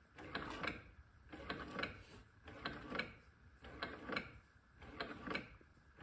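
Keurig 2.0 single-cup coffee brewer starting its brew cycle: the pump works with a faint, steady run of mechanical ticks, about two to three a second, before the coffee begins to flow.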